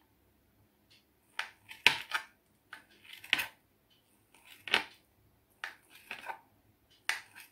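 Kitchen knife chopping steamed dill-and-gram-flour logs into small pieces, the blade knocking on a hard chopping board in about ten sharp, irregular clicks.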